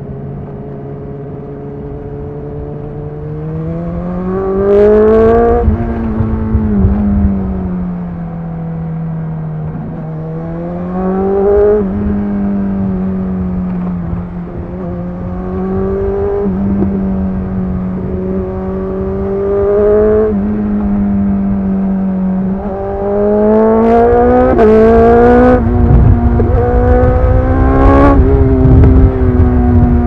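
BMW S 1000 XR's inline-four engine through a Cobra slip-on exhaust with the dB killer removed, heard from the rider's position, accelerating through the gears. The note rises under throttle and falls back at each shift, several times, with a few short sharp cracks around the shifts and the loudest pulls near the end.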